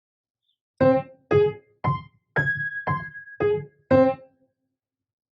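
Piano playing seven single notes in C minor, about half a second apart, stepping up and then back down in a mirror-image pattern; the middle note carries a held high tone.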